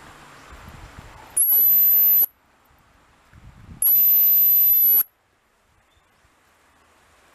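Metal dog whistle blown twice: two very high-pitched steady blasts of about a second each, the second a little longer. Each blast slides briefly up at its start. This is the recall signal to call the dogs back.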